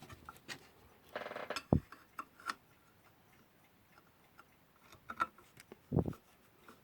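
Small metal clicks and taps of a magnetic screwdriver and a screw against the metal parts of a vintage alarm clock being put back together, with a short buzzing scrape about a second in and a dull knock near the end.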